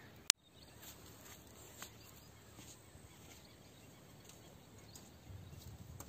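Faint open-air ambience at a reservoir bank, broken about a third of a second in by a single sharp click. Near the end come soft low thumps of bare feet stepping on the stone bank.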